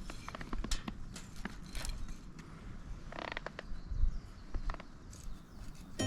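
Campfire wood crackling in a fire pit: irregular sharp snaps and pops at uneven intervals.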